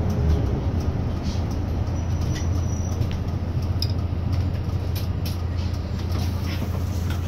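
Diesel engine of a low-floor city bus running steadily, heard from inside the cabin near the front, with road noise and a few faint rattles from the bus's fittings.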